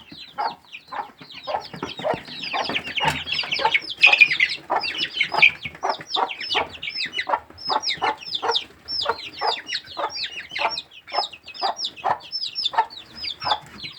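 A brood of young chicks peeping, many short high chirps that each fall in pitch, about three a second and overlapping.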